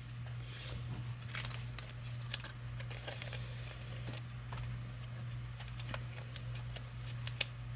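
Trading cards being handled: light, irregular clicks and rustles as cards are slid and flipped against each other, over a steady low hum.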